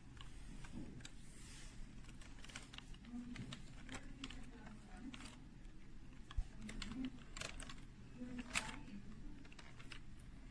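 Computer keyboard keys clicking irregularly as they are pressed.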